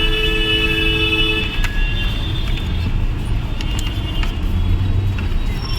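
Dense, slow city traffic: engines rumbling, with another vehicle's horn sounding steadily for the first second and a half, then fainter, shorter horn toots.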